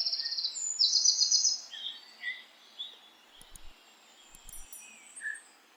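Birds singing: fast high trills in the first second and a half, then scattered fainter chirps over a light hiss.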